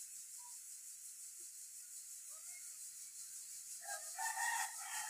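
A rooster crowing once, about four seconds in, for roughly a second and a half, after a few faint short calls.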